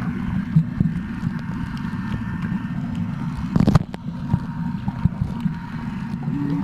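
A steady low rumble of a running motor, with a faint steady whine above it and a brief louder knock about three and a half seconds in.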